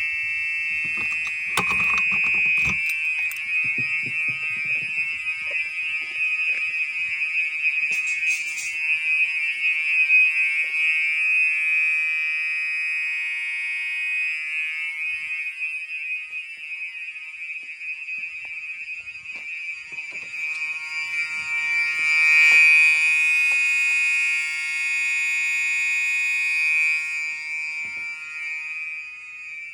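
Fire alarm horn/strobes (Gentex SHG electronic horns) sounding a steady, continuous high-pitched alarm tone, the system in alarm after a manual pull station was activated. A few handling knocks come in the first seconds, and the tone fades somewhat near the end.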